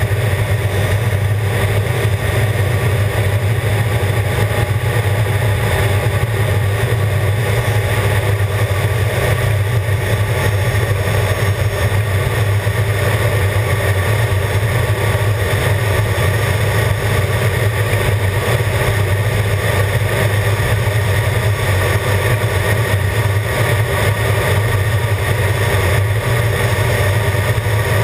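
Jet engine and rushing airflow heard from inside the cockpit of a jet aircraft in flight: a loud, steady drone with a strong low hum.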